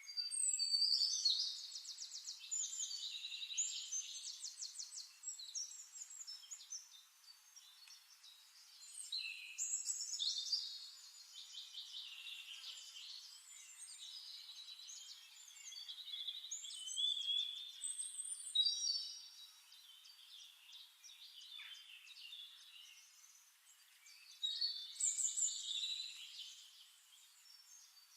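Songbirds singing in bouts of rapid, varied high notes and trills, each lasting a few seconds with quieter gaps between, the loudest bouts near the start, about ten seconds in, around eighteen seconds in and near the end.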